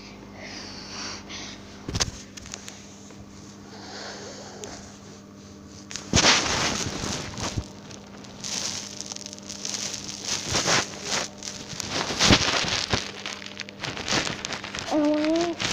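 Crackling, scraping handling noise on a phone's microphone as the phone is moved and gripped. It is faint at first, then loud and rough from about six seconds in, over a steady low hum.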